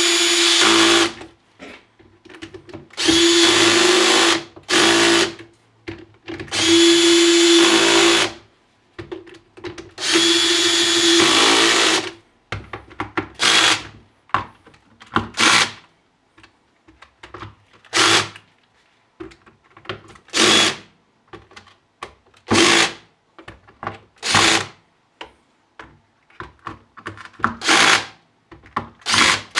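Electric drill-driver driving and tightening screws in short trigger runs, with the motor whining at a steady pitch. The first few runs last a second or two each, then about nine brief blips follow as the screws are snugged down.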